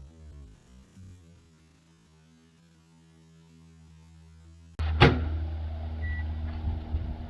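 Background music fades away; then, about five seconds in, a microwave oven abruptly comes in loud with a sharp crack and a steady low hum that runs on, with phones being cooked inside.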